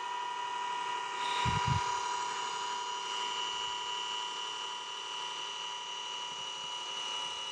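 Celestron NexStar 8SE's computerised drive motors whining steadily at one high pitch as the mount slews to a go-to target. A brief low thump about a second and a half in.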